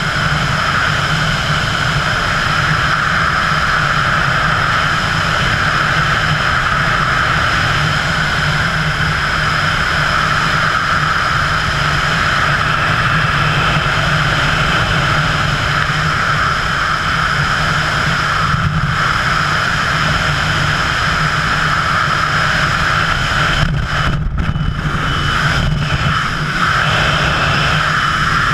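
Steady rushing wind noise of wingsuit freefall over a body-mounted camera, loud and unbroken, with a few brief dips in the hiss about three-quarters of the way through.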